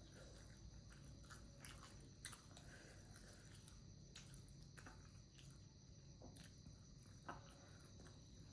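Faint chewing and biting of momos (steamed dumplings), heard as scattered soft clicks and squishes, over a steady high-pitched background hum.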